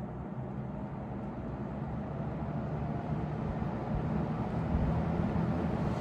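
Montgomery Ward's Signature box fan coming up to speed on medium, a steady rush of air and motor hum that grows gradually louder.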